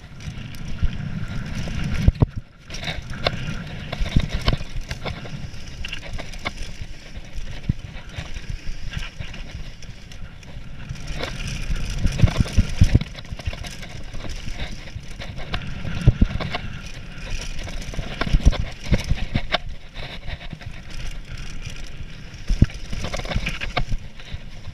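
Mountain bike riding fast down a dirt and gravel singletrack: tyres running over the trail with a steady low rumble, and frequent sharp knocks and rattles from the bike over bumps.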